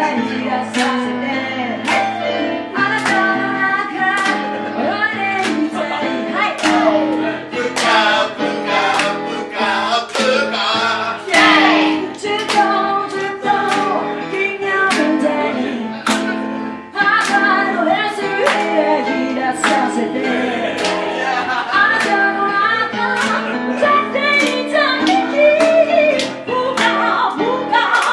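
A woman singing live into a microphone, her voice sliding up and down in pitch, over electric keyboard chords and a steady percussive beat.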